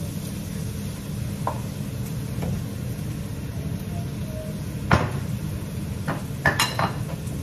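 Dishes being handled on a kitchen counter: a sharp clink of a bowl set down about five seconds in, then a quick run of small clinks near the end, over a steady low hum.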